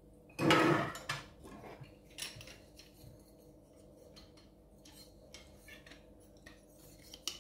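Metal kitchen utensils clattering: one loud rattle about half a second in, then scattered lighter clicks and taps.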